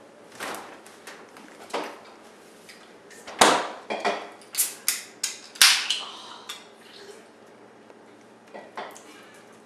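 Refrigerator door and a drink can being handled: a string of sharp knocks and clicks, the loudest a heavy thud about three and a half seconds in, followed by several quick clicks over the next two seconds.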